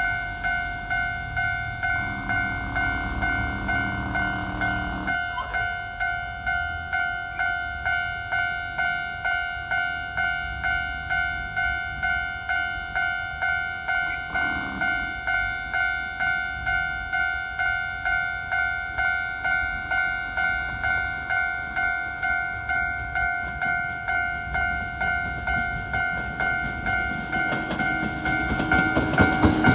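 Electronic level-crossing alarm ringing in a steady, even rhythm, about one and a half strikes a second. There are two short louder bursts of noise, about two seconds in and near the middle. Near the end an eight-car Toei 5300-series train approaches and grows louder, a low hum and rail noise rising under the alarm.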